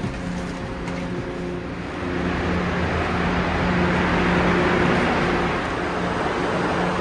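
Steady drone of a standing high-speed train, its low even hum running throughout, with a broad rushing noise that grows louder about two seconds in.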